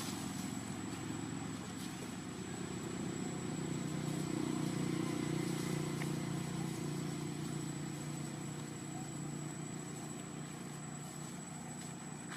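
A low, steady engine hum that grows louder toward the middle and then slowly fades, like a motor vehicle running out of sight, with a thin, steady high whine above it.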